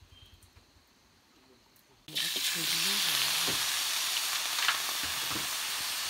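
Cicadas frying in a wok: a loud, steady sizzle that starts suddenly about two seconds in, after a quiet opening.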